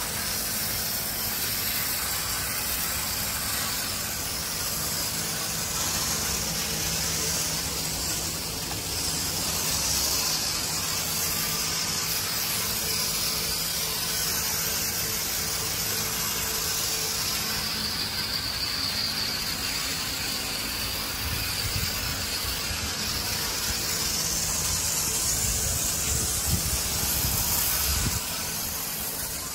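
Portable battery-powered sprayer running steadily, its pump humming under the continuous hiss of a fine water jet spraying across solar panels.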